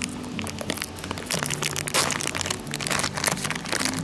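Clear plastic zip-top bag crinkling and crackling in the hands in quick irregular bursts, over background music with held low notes.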